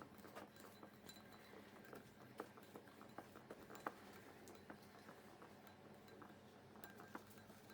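Faint, irregular clicking of a whisk against a bowl while stirring a thick sauce, a couple of taps slightly louder about two and a half and four seconds in.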